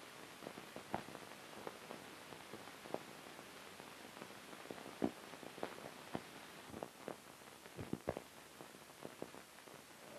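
Faint steady hiss with scattered irregular clicks and pops, a couple of them louder: surface noise of an old film print's soundtrack.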